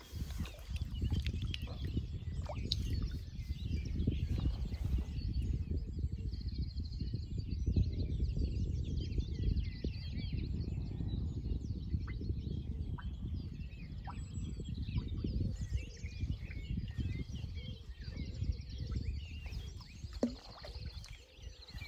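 Wind buffeting the microphone in a steady low rumble, with small birds chirping and, twice, giving a short rapid trill in the background.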